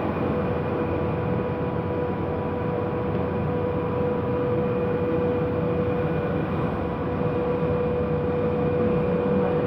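Modified mini blower running steadily: a rush of air with a constant motor hum.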